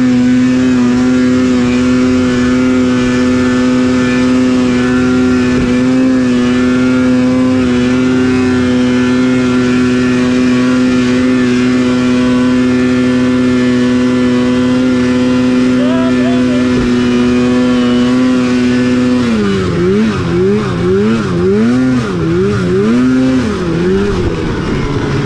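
Older Polaris snowmobile's two-stroke engine running hard at a steady high pitch while climbing. Near the end the pitch swings up and down several times for a few seconds, then settles steady again.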